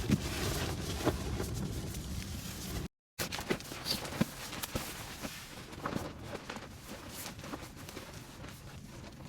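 Wind blustering with scattered rustles and light knocks. The sound cuts out for a moment about three seconds in, then comes back quieter, with scattered clicks and taps.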